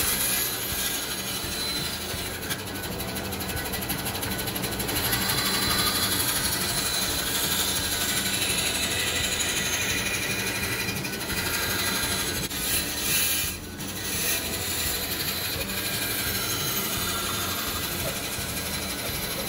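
Bandsaw running steadily, its blade cutting through plywood as the workpiece is fed and turned along a curve.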